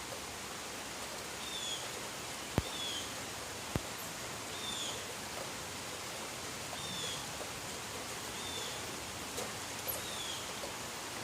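Steady hiss of rain falling, with a bird repeating a short high call about once a second. Two sharp ticks come a little over a second apart, a few seconds in.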